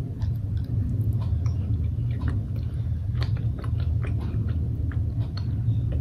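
A person chewing a soft taro mochi with the mouth close to the microphone: small wet clicks and smacks, irregular, over a steady low hum.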